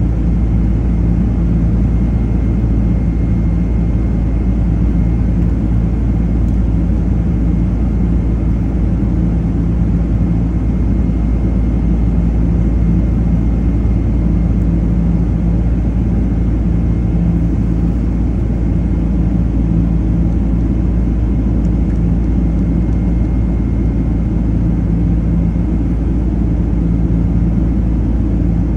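Boeing 767-300 jet engines at climb power heard from inside the passenger cabin: a steady, unbroken roar with a low hum and a faint steady high whine.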